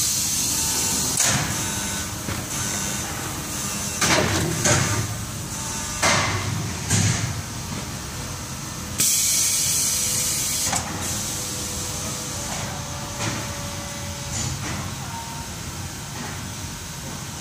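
Shoe-sole molding press and its molds being worked by hand: steady machine noise with a series of sharp metal clanks and knocks as the mold plates and soles are handled, and a loud burst of hissing air lasting nearly two seconds about nine seconds in.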